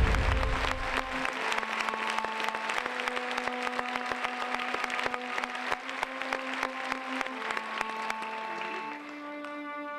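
Audience applauding over slow music of long held notes. The deep bass of the music drops away about a second in, and a cluster of bell-like notes comes in near the end.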